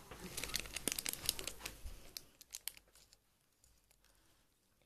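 Small plastic vinegar sachet crinkling and tearing as it is handled and opened, a run of light crackles for about two seconds.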